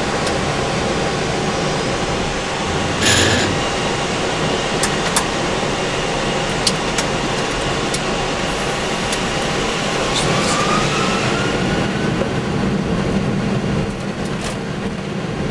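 Boeing 747 flight-deck noise on the runway during the takeoff: a loud, steady rumble of the engines and airflow. Scattered sharp clicks and knocks run through it, a short loud hiss comes about three seconds in, and a faint rising whine comes a little past the middle.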